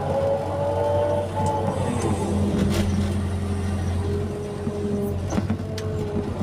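Excavator's diesel engine running steadily, with a hydraulic whine that slowly rises and falls in pitch as the machine works, and a few short knocks.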